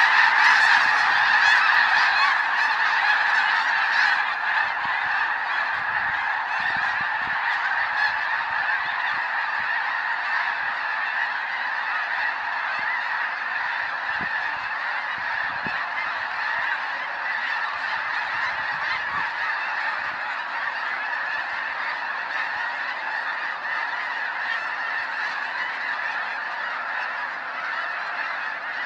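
A massed flock of snow geese calling all together as they take off, a dense, unbroken din of honking. It is loudest at the start and slowly grows fainter.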